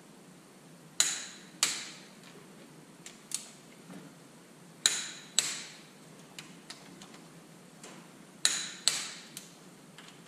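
Click-type torque wrench breaking over on cylinder-head bolts of a Detroit Diesel 3-53T: three sharp double clicks a few seconds apart, each marking a bolt brought up to the set torque. Lighter ticks of the wrench and bolts come between.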